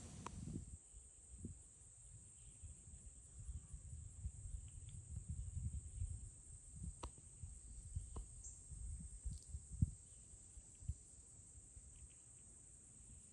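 Steady high-pitched insect drone over an uneven low rumble, with a few faint clicks scattered through.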